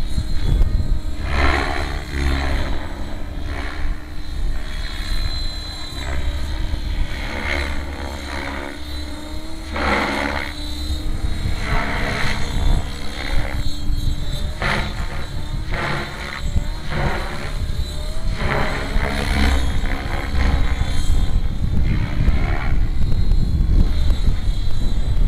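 FBL700E radio-controlled helicopter flying overhead, its rotor and motor sound rising and falling in pitch and loudness as it manoeuvres.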